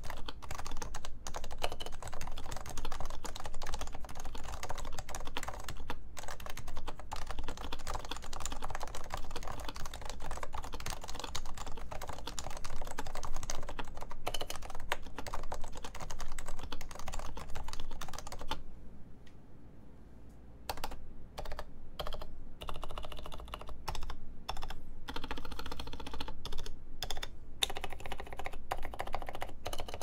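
Topre Realforce 84 keyboard with 45 g Topre electro-capacitive rubber-dome switches, lubed and fitted with silencing rings, being typed on fast and without a break. About two-thirds of the way in the typing stops for a couple of seconds, then goes on as separate key presses and short runs.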